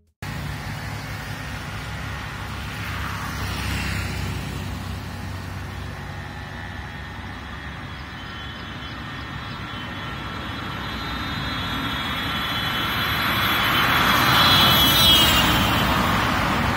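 Highway traffic, with a vehicle growing louder as it approaches and passing about fifteen seconds in, its whine dropping in pitch as it goes by: the Doppler effect.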